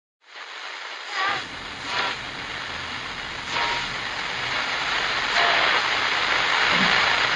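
Television static hiss, swelling gradually louder, with a few brief crackles in it.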